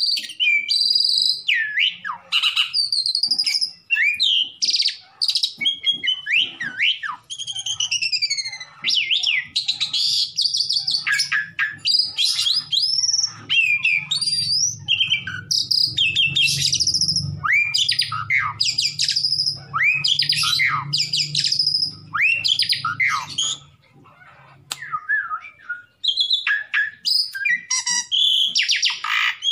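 Pied starling (jalak suren) in full song: a fast, nearly unbroken string of whistles, rising and falling glides and harsh chattering notes, with a short break a few seconds before the end.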